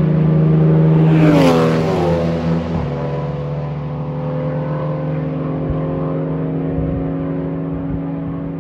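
Race cars on an introductory lap driving past at moderate speed, their engines droning steadily. About a second in, one car passes close by, its engine note falling in pitch as it goes by.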